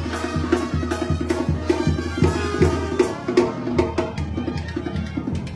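Music with a steady, quick drum beat over a bass line.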